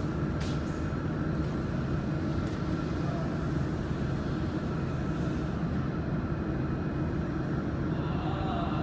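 Steady low machine hum with a faint hiss, from equipment running in the room, with a few brief rustles in the first few seconds.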